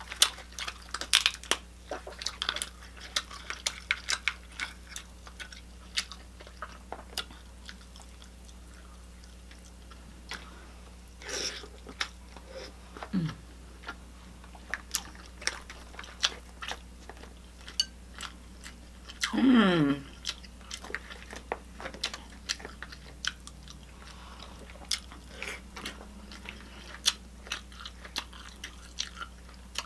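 Close-up eating sounds: shellfish shells cracking and snapping, with chewing and smacking, as sharp clicks and crunches throughout and most frequent in the first few seconds. The loudest thing is a short sound that falls steeply in pitch about two-thirds of the way through, with a couple of smaller ones like it earlier, over a steady low hum.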